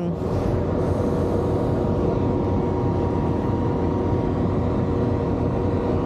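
Steady aircraft turbine noise on an airport apron: a loud, even rumble with a constant high whine running through it.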